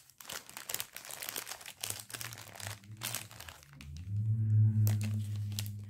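Small plastic zip-lock bags of diamond painting drills crinkling and rustling as they are handled. About four seconds in, a steady low hum takes over until near the end.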